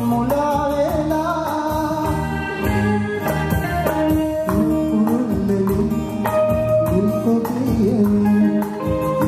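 A male singer singing a Sinhala song live, with a band behind him and a steady drum beat.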